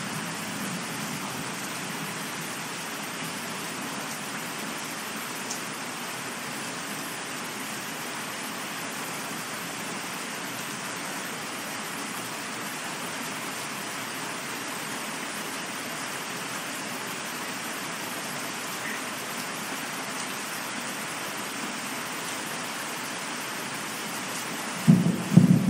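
Steady rain falling, an even hiss. Near the end a clap of thunder breaks in with a sudden low rumble, much louder than the rain.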